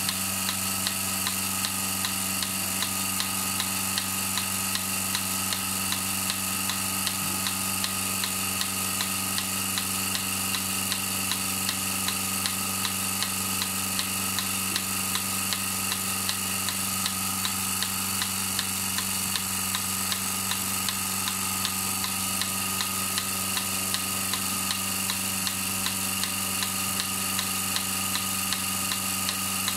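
Milking machine running while milking a cow: a steady motor hum from the vacuum pump with regular clicking from the pulsator.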